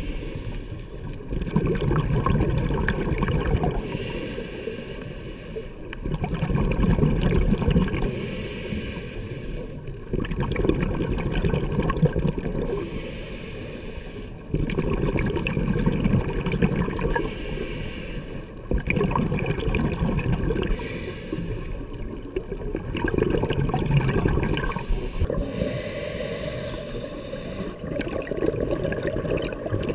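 Scuba diver breathing through a regulator underwater: a hiss on each inhale and a rush of exhaust bubbles on each exhale, repeating about every four to five seconds.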